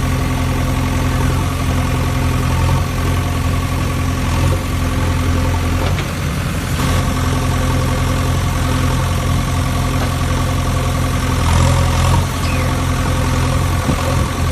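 JCB excavator's diesel engine running steadily at a constant speed, dipping briefly about six seconds in and rising slightly near twelve seconds.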